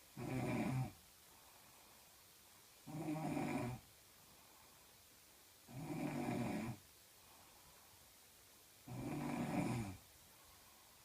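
A woman snoring in her sleep: four snores, each about a second long, coming about every three seconds with quiet breathing gaps between them.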